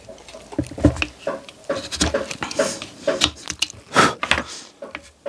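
Small hand knife cutting and scraping the wood of a carved mask: a run of short, irregular scraping strokes, the strongest about a second in and again near four seconds in.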